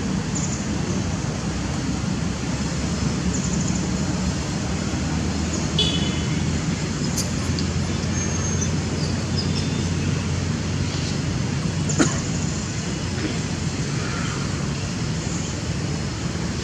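Steady low rumble of outdoor background noise, with a few brief faint high-pitched chirps and a single sharp click about twelve seconds in.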